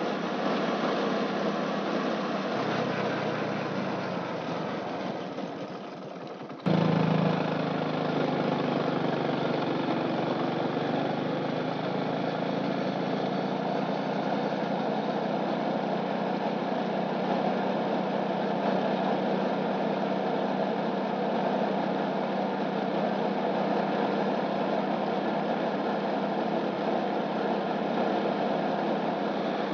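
A vehicle's engine running steadily under road and wind noise while travelling along a road. About seven seconds in, the sound cuts back in abruptly and louder after a few seconds of fading.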